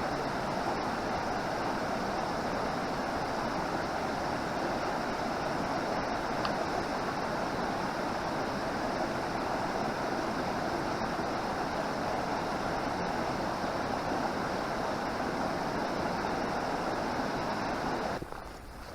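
Fast stream rushing over rocks, a steady dense rush of water. It drops away suddenly near the end.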